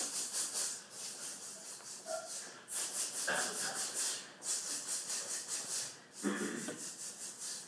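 A concert band performing a rhythm exercise in unison as a fast, even hissing pattern. It runs in phrases of about a second and a half, each broken off by a short gap.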